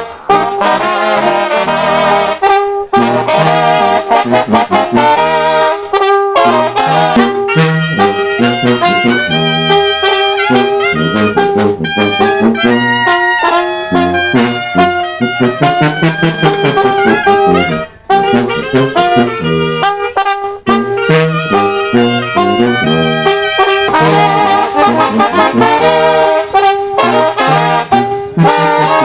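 Sinaloan banda brass band playing, with trombones carrying the tune in a wavering vibrato over a stepping bass line and drums. There is a momentary break about eighteen seconds in.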